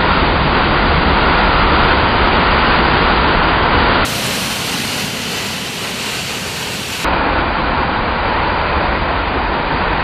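Waterfall crashing over boulders: a loud, steady rush of white water. About four seconds in the sound abruptly turns thinner and hissier, with less low rumble, for about three seconds before the fuller rush returns.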